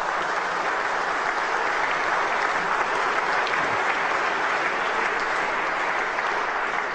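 Audience applauding: a dense, steady mass of hand claps.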